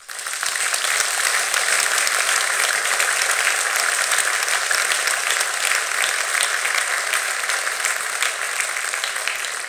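Audience applauding: many hands clapping, starting suddenly and going on steadily, easing off slightly near the end.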